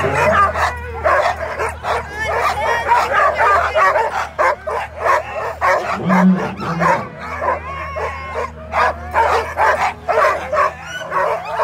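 A hitched sled dog team barking, yipping and whining all at once, many dogs overlapping without a break: racing sled dogs worked up and eager to run while they wait at the start line.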